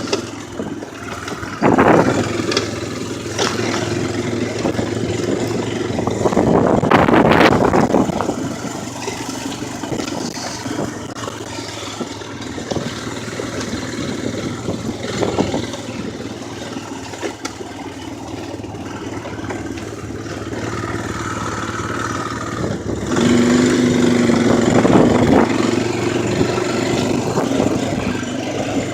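4x4 ATV engine running while being ridden, the throttle rising and falling, with louder surges about two and seven seconds in and a louder, higher-revving stretch near the end.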